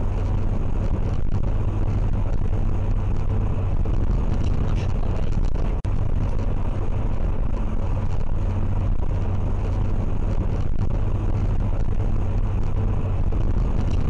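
Steady road and engine noise inside a moving car, picked up by a dashcam, with a strong low hum. The sound cuts out for an instant about six seconds in.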